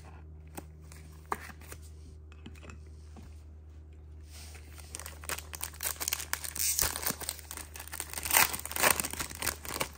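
A trading card pack's wrapper crinkling and being torn open, starting about halfway through, after a few soft clicks of cards being handled. A low steady hum runs underneath.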